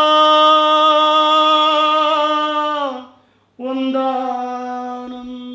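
A man singing a Kannada folk song with no accompaniment. He holds one long note for about three seconds, pitch rising slightly as it begins, then after a short breath starts a second held note that slowly fades.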